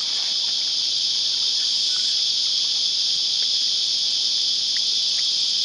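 A chorus of cicadas: one loud, steady, high-pitched buzz that does not let up.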